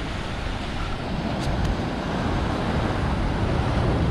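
Ocean surf washing through rocky channels along the shore, a steady rushing noise, with wind buffeting the microphone.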